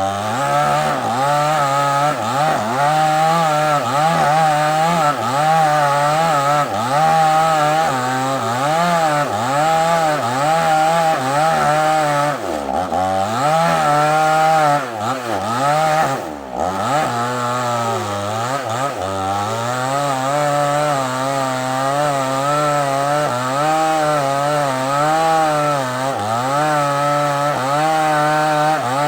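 Two-stroke chainsaw cutting through a large sengon log, its engine note wavering up and down under load, with a couple of brief sharp dips around the middle.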